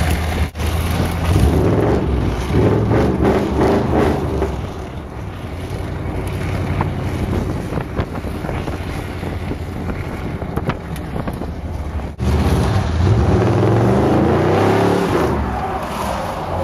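Car engine running with wind and road noise from inside the cabin as the car tows a sled over snow. The engine note wavers up and down in two louder stretches, and the sound drops out briefly twice, about half a second in and near twelve seconds.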